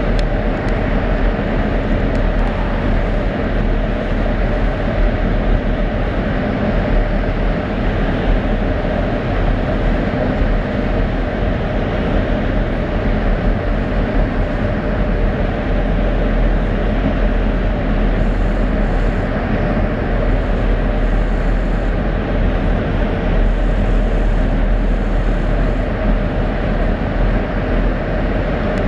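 Steady running noise inside a CRH high-speed train cruising at about 305 km/h: an even low rumble with a rush of air and track noise, with no change in pitch or level.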